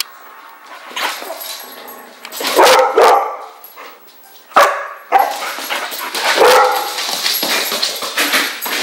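Dogs barking in rough play, a young yellow Labrador and a puppy: a run of sharp play barks, the loudest coming in quick succession about halfway through.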